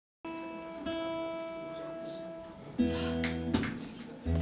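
Acoustic guitar being tuned: a single string rings on steadily, then chords are strummed, once near three seconds and again just before the end, with a short click between them.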